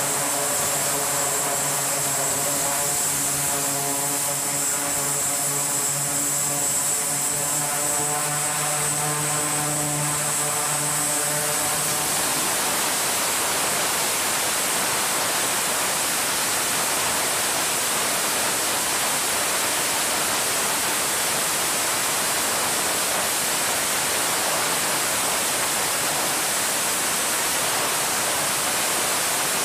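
E-2 Hawkeye's twin turboprop engines running on the catapult, their propellers giving a steady hum of several pitched tones over a rushing noise. About twelve seconds in, the tones give way to an even rushing roar that holds to the end.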